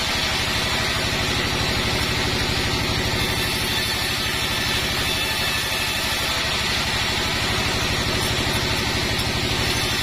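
Sawmill band saw machine running steadily, its drive giving a fast, even low pulsing throughout.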